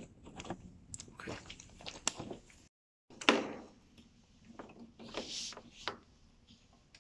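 Scattered clicks and knocks of plastic parts of a portable sink and its hose being handled and fitted. The loudest knock comes just after three seconds in, right after the sound drops out for a moment.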